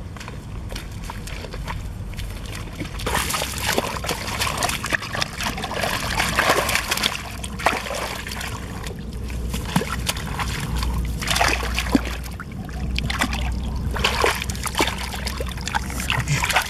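Hands splashing and squelching through thick muddy water in a dug pit while grabbing at trapped fish, with irregular wet slaps and sloshes starting about three seconds in.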